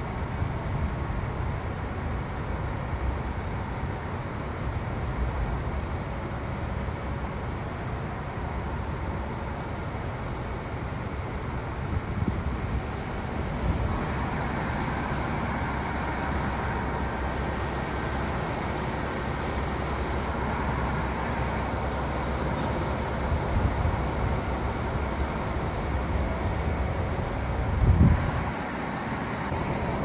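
Steady rumbling ambience of a railway station's tracks and platforms, which changes in character about fourteen seconds in, with one low thump near the end.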